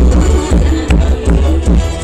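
Loud dance music with a heavy bass beat playing from a rot hae, a Thai mobile sound truck's speaker rig.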